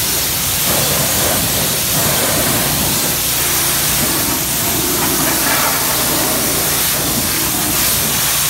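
High-pressure water jet from a Kranzle K1322TS electric pressure washer blasting a tyre and wheel well: a loud, steady hiss of spray that stops abruptly at the very end.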